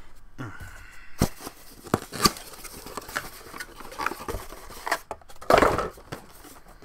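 Cardboard boxes being handled: scattered light knocks and taps as boxed Funko Pop figures are lifted out of a cardboard shipping box, with a louder scraping rustle of cardboard sliding on cardboard about five and a half seconds in.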